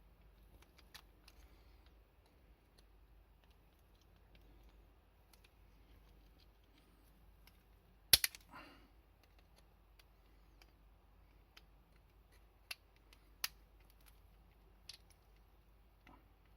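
Small hard clicks and taps from handling a metal ratchet adapter and its parts, scattered and irregular, with one sharp double click about eight seconds in.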